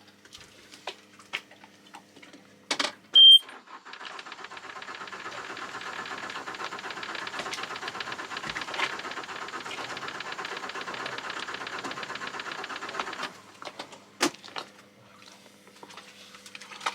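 Yanmar marine diesel engine being cranked by its starter for about nine seconds without catching, after a short loud beep from the engine panel at key-on. The fuel filter has just been changed and the engine won't start, a sign of air in the fuel system that has not yet been bled.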